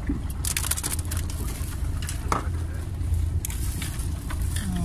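Steady low rumble, with a quick run of clicks and rustles from handling gear about half a second in and a few single clicks later.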